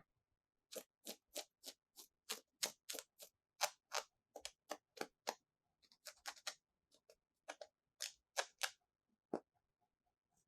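Small plastic toy pieces clicking and tapping as they are handled: a quick run of sharp clicks, about three or four a second, then a short pause and a few scattered clicks.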